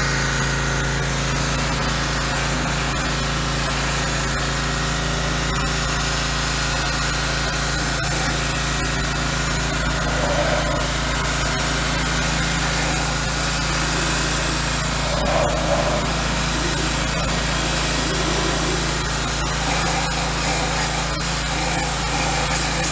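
A motor or machine running steadily: a constant hum with a hiss over it and faint clicks now and then.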